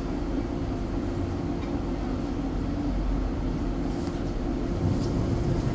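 Wuppertal Schwebebahn suspended railway car running: a steady rumble with a constant hum.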